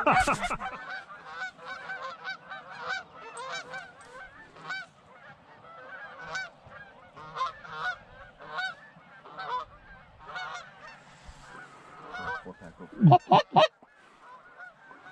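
Geese honking and clucking: many short calls in quick succession, with a burst of louder honks near the end.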